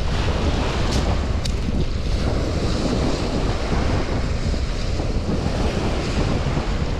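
Great Lakes waves washing steadily onto the shore, with wind buffeting the microphone. A few light clicks in the first couple of seconds.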